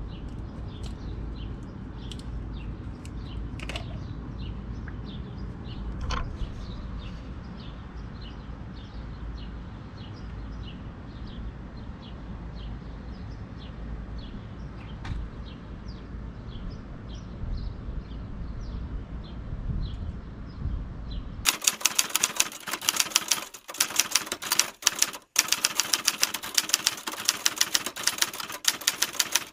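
High chirps, like small birds, repeat about twice a second over a steady low rumble. About two-thirds of the way through, a rapid typewriter key-clacking sound effect starts and runs on as text is typed out, much louder than what came before.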